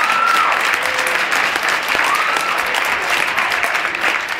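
Theatre audience applauding, dense clapping with a couple of short cheering calls rising over it; the applause begins to thin near the end.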